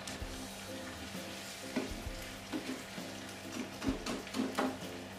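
Wooden spatula stirring sliced jengkol in a simmering spice-and-palm-sugar sauce in a frying pan: a low sizzle with irregular scrapes and knocks of the spatula against the pan. Soft background music plays under it.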